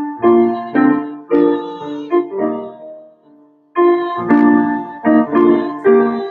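Piano playing a slow run of chords, each struck and left to ring. The playing stops briefly about halfway through, then picks up again.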